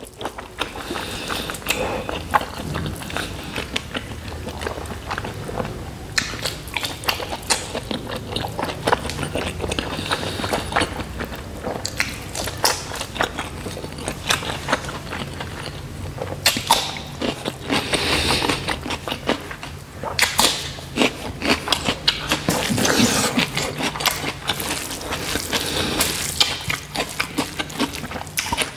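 Close-up eating sounds of a person eating rice and pork curry by hand: continual chewing with wet mouth clicks and smacks.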